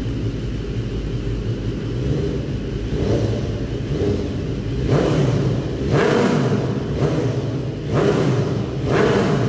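BMW HP4 Race's inline-four engine with an Akrapovic exhaust, running on a paddock stand: it idles, then from about three seconds in is revved in a series of short throttle blips, each a quick rise and fall in pitch, getting sharper and louder about halfway through.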